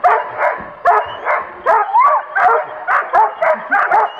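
Black shepherd dog barking excitedly in a rapid string of short barks and yelps, about three a second, some rising and falling in pitch, while held back by its harness.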